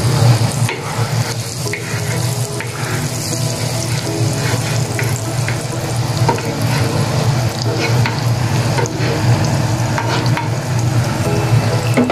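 Chopped garlic sizzling steadily in melting butter on a sizzling plate, with a wooden spatula scraping and tapping the plate now and then, over a steady low hum.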